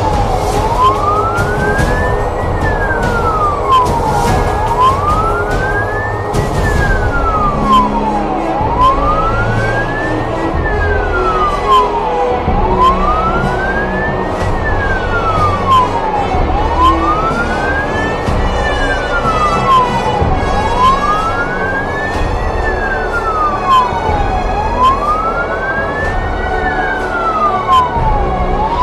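Fire brigade vehicle's siren on a slow wail, rising and falling about every four seconds, heard from inside the vehicle over its engine and road noise during an emergency run.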